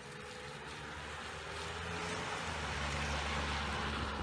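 Ford Transit Connect van driving past on a wet road: hiss of tyres on the wet pavement over a low engine hum, growing louder as it comes close and loudest near the end.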